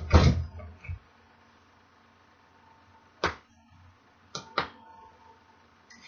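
Hand snap-button press clamping a snap fastener into quilted fabric: heavy thumps of the lever in the first half-second, then quiet broken by three sharp clicks, one about three seconds in and two close together a little later.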